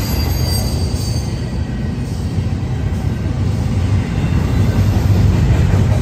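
Double-stack container well cars of a freight train rolling past at speed: a steady low rumble of steel wheels on rail, with a faint high wheel squeal in about the first second.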